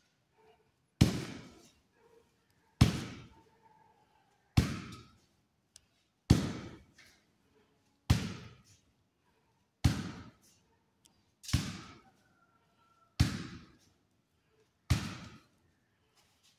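Shin kicks into a hanging sand-filled jute sack, for shin-bone conditioning: nine sharp, heavy thuds at a steady pace, about one every second and three-quarters, each dying away quickly.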